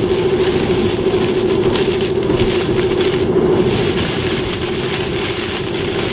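Heavy rain pelting a moving car's windshield and roof over steady road noise and a constant hum from the car, heard inside the cabin.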